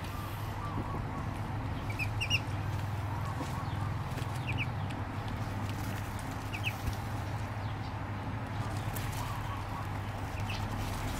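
Duckling peeping: a few short, high double peeps spaced a couple of seconds apart, over a steady low hum.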